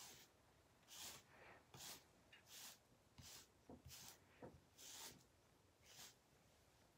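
Faint, scratchy strokes of a hairbrush through short hair, about one a second, eight strokes in all.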